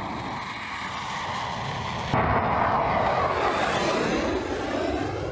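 Jet aircraft noise: a steady rush that jumps louder about two seconds in, then carries sweeping, wavering tones as the aircraft passes.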